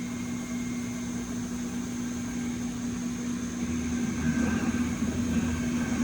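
Okuma CNC milling machine running a program: a steady mechanical hum with a faint high whine, growing louder and rougher about four seconds in.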